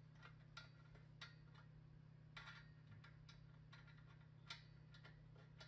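Faint, irregular small ticks and clicks of a knurled metal thumbscrew being threaded in by hand, fastening the back pulp-ejection cover to a Santos 68 centrifugal juicer's stainless housing. A low steady hum sits underneath.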